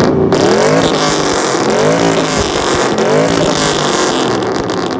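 A car engine revved hard several times, its pitch climbing and dropping again and again, over a loud steady hiss.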